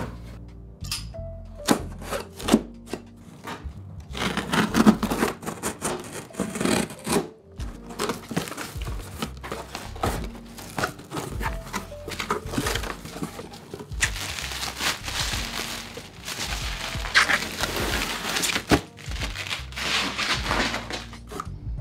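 A taped cardboard shipping box being handled and opened: tape pulled off, flaps and crumpled packing paper rustling, bubble wrap crinkling, and knocks of cardboard on a wooden table. Chill music plays underneath.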